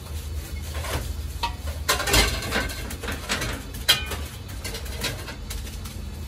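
Long-handled metal ladle scraping and tapping on a large flat steel griddle as minced meat is scooped and pressed, a few short clicks with a sharp one about four seconds in, over a steady low hum.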